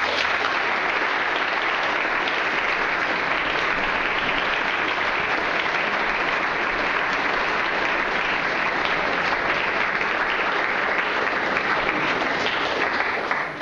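Audience applauding steadily; the clapping starts all at once and dies away near the end.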